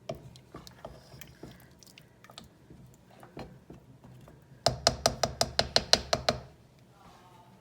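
A quick, even run of about a dozen sharp clicks, roughly seven a second, lasting under two seconds, after a few scattered light knocks and handling noises.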